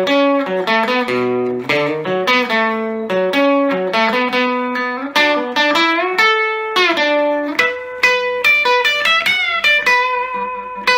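Epiphone Casino hollow-body electric guitar played through a Vox AC15C1X valve amp's Top Boost channel: a quick melodic line of single notes and double stops. In the last few seconds the line settles into one high note picked over and over.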